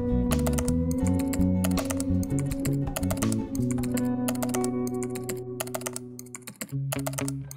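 Background music with a computer-keyboard typing sound effect, rapid key clicks running over it as on-screen text types out. The music thins out briefly near the end.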